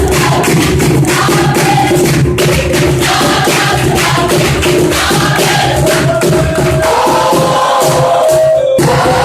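A choir singing with a steady drum beat.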